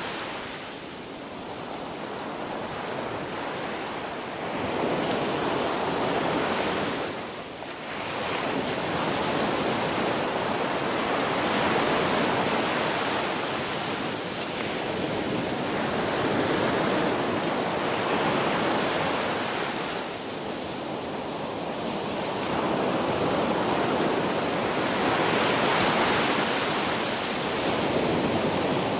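Ocean surf: waves breaking and washing up the beach in a continuous rush that swells and ebbs every few seconds, with brief lulls between breakers.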